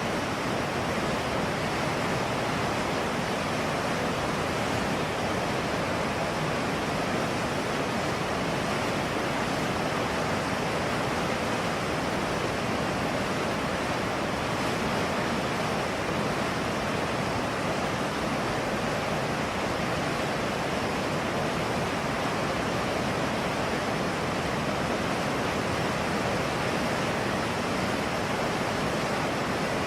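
River water rushing in a steady, even noise that does not change.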